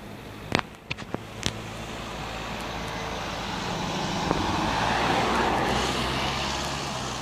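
Volkswagen Transporter ambulance driving past, its engine and tyre noise swelling as it approaches, peaking about five seconds in, then fading as it moves away; no siren is sounding. A few sharp clicks come near the start.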